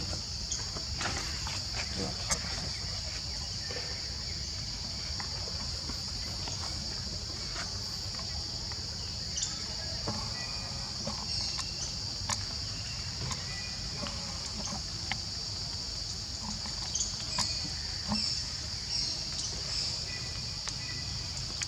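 Steady high-pitched drone of insects, with a low background rumble and short squeaks and clicks here and there, most of them around ten seconds in and again near the end.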